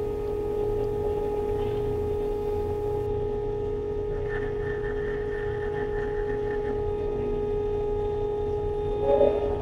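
Ship's machinery humming steadily: one strong droning tone over a low rumble, with a rising tone and a rise in loudness near the end.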